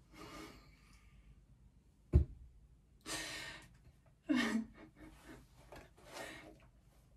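A woman's breathy sighs and exhales with a short voiced laugh in the middle, and one sharp knock about two seconds in.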